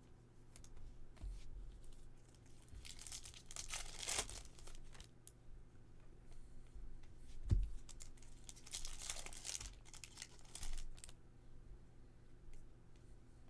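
Foil wrappers of baseball card packs being torn open and crinkled, with two main rips about five seconds apart and smaller crackles between. A single dull knock comes between the two rips.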